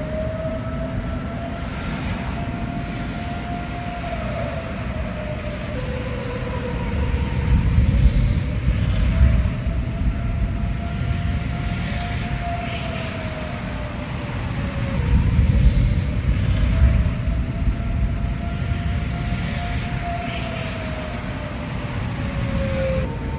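Outdoor tornado warning siren sounding a steady wail, its pitch drifting slowly up and down and dipping about every nine seconds, the signal of a tornado warning. Under it, a low rumbling noise swells twice, about eight and sixteen seconds in.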